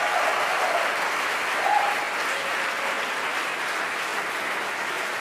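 A crowd applauding and cheering, with a shout rising out of the clapping a little under two seconds in.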